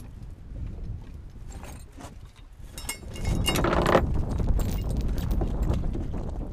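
Metal chain links clinking and rattling as the chain is handled, in a run of sharp clicks, with wind rumbling on the microphone that gets louder from about three seconds in.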